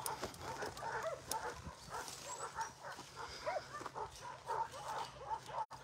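A puppy crying: a continuous run of short, high whimpering yelps, about two a second.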